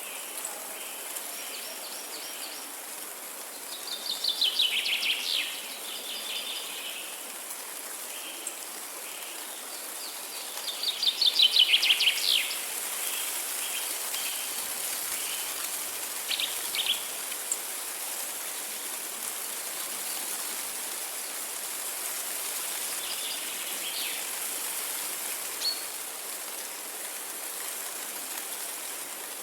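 A songbird sings two loud, rapid trills of repeated notes, about four and eleven seconds in, then a few shorter chirps, over a steady rush of flowing water.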